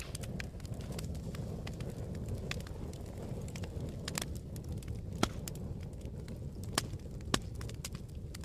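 Wood fire burning in a fireplace: a low steady rumble with scattered sharp crackles and pops, three louder pops in the second half.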